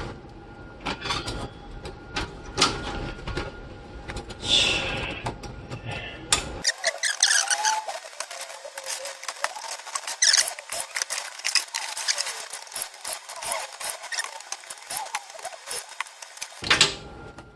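Dense clicks, taps and scraping from hands working on computer hardware as a motherboard is taken out of a PC case. For most of the middle stretch the sound turns thin and tinny, with a few squeaks among the clicks.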